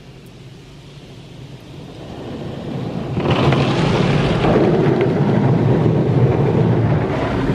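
Laserwash touchless car wash spraying water and coloured foam onto the car, heard from inside the cabin: a low hum gives way to a loud, steady rush of spray on the roof and windows, building from about two seconds in and at full force from about three seconds.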